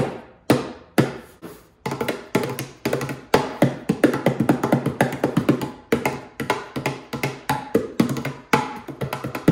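Small homemade wooden cajon (box drum) struck with the bare hands: a few single strikes about half a second apart, then from about two seconds in a quick, busy rhythm. It is a sound test of the freshly glued drum.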